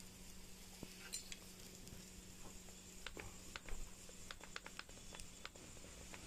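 Faint sizzling of parottas and minced mutton cooking on a hot, oiled flat iron griddle, with scattered light crackles and a low steady hum.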